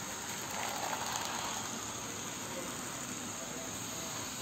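Model train (a WCG 2 electric locomotive model with tanker wagons) running along the layout track: a steady whirring, rolling hiss of wheels and motor that swells slightly about a second in.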